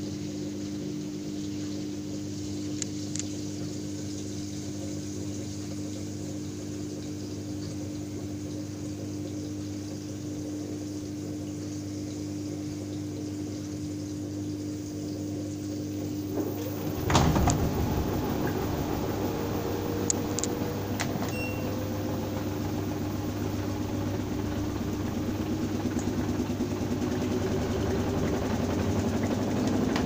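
Front-loading washing machine running with a steady electric hum. Just past halfway there is a sharp clunk, and then the drum motor picks up with more rumble and a slowly rising whine as the drum speeds up.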